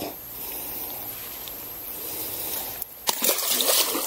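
Water splashing about three seconds in, lasting about a second: a largemouth bass being let go back into the lake.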